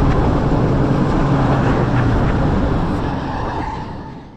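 Hybrid wooden roller coaster train running along its track: a steady, loud rumble of wheels on rail mixed with wind, with a low hum under it, fading out near the end.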